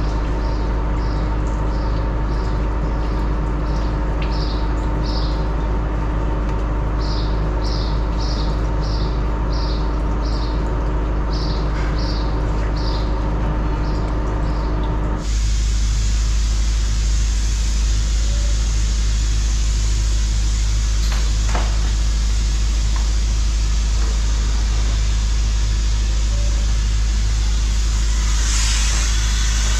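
Engine-driven compressor of a sandblasting rig running steadily with a low hum. About halfway through, the sound changes abruptly to a broader, steady hiss.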